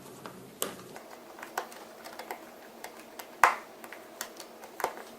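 Scattered light clicks and taps of a small precision tool and tiny screws against a smartphone's frame as it is put back together, with a louder tap about three and a half seconds in and another near the end.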